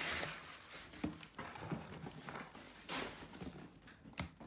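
Crumpled paper packing rustling as it is pulled out of a cardboard box, loudest at the start, with a few short knocks along the way.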